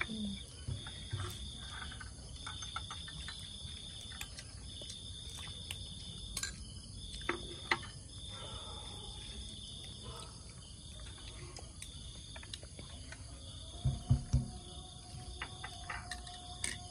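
Crickets trilling in long pulses, with fainter steady insect song above them. Scattered light clicks run through it, and a few louder knocks come about two-thirds of the way in.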